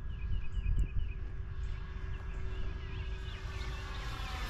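Distant electric motor and propeller hum of an E-flite T-28 RC plane in flight, a steady tone that grows slightly louder near the end, over wind rumble on the microphone and small birds chirping.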